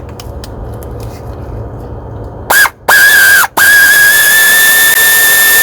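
Pneumatic air ratchet running freely in three bursts starting about two and a half seconds in: two short blips, then a long run of about three seconds, a steady high whine over loud air hiss, as it spins out a spark plug.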